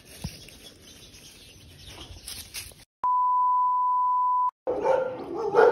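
A steady, loud 1 kHz test-tone beep from a TV colour-bar test card lasts about a second and a half and cuts in and out abruptly. Before it there is only faint outdoor ambience with a few clicks. Right after it comes loud dog barking.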